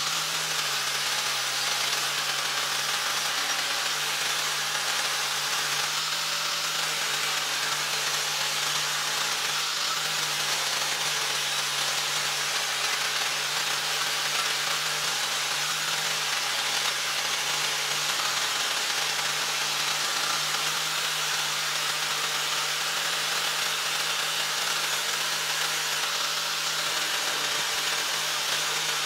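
Angle grinder with a wire wheel brush running steadily against a rusted steel hoe blade, scrubbing off rust: a continuous rough hiss over the steady hum of the motor.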